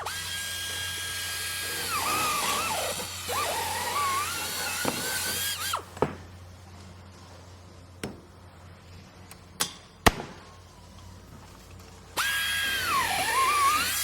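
Electric power drill whining at a steady high pitch, then sagging and wavering as it loads up. After it stops come a few sharp knocks, and near the end the drill starts again.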